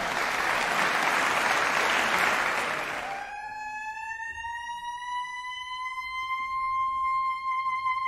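Audience applause for about three seconds, then a soprano saxophone begins a single long held note that slides slightly up in pitch before settling.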